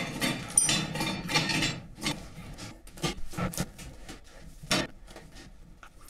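Handling sounds as the two pieces of a wood-stove heat exchanger are fitted and sealed with fire rope. There are a couple of seconds of rubbing and scraping, then a few sharp knocks.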